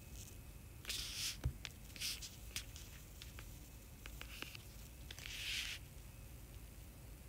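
Faint handling noise: a few short rustles, one about a second in, one around two seconds and one near the end, with several light clicks and taps between them.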